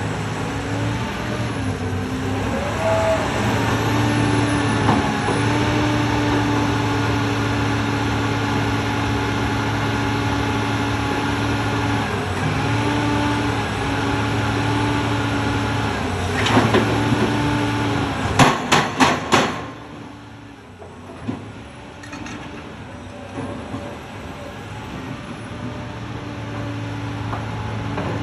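Heavy construction machinery with a diesel engine running steadily, its pitch dipping and rising every few seconds as it works. Two-thirds of the way through come a few sharp metallic knocks, after which the engine drops to a lower, quieter running before building up again near the end.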